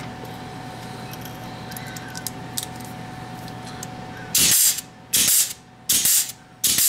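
Hand-lever grease gun pumped four times into the grease fitting on a driveshaft slip yoke, each stroke a short hissing squirt, about one every three-quarters of a second, starting a little past halfway.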